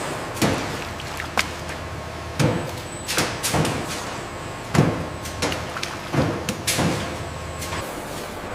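Food-processing machinery running with a steady low hum, with irregular knocks and clunks, about eight in all, the loudest near the middle.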